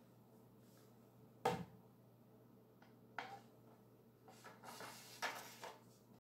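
A katana being handled and sheathed: a sharp knock about a second and a half in, a smaller click near the middle, then the blade scraping as it slides into its scabbard near the end.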